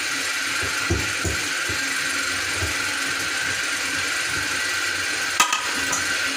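A spoon working powdered spice mix into a steel pot of broth on the stove: a few soft knocks of the spoon against the pot in the first few seconds and one sharp click about five and a half seconds in, over a steady kitchen hiss.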